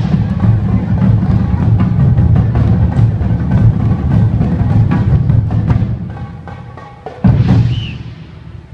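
Japanese taiko drums playing a dense, driving rhythm that dies away about six seconds in. A single loud, deep boom follows about a second later and rings out.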